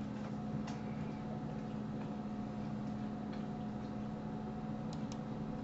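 Steady low electrical hum from the recording setup, with a few faint computer mouse clicks, two in quick succession about five seconds in.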